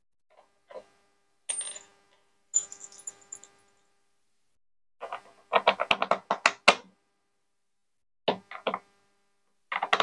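Loose steel bolts clinking and rattling as they are handled and fitted into the bolt holes around a washing machine's outer tub, in scattered bursts of sharp clicks with a dense run about five to seven seconds in.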